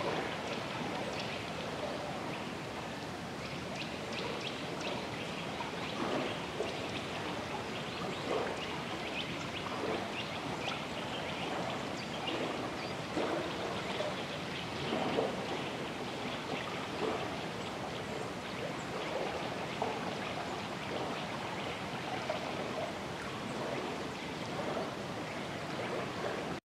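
Drawa river water flowing: a steady rush with irregular brief gurgles every second or two.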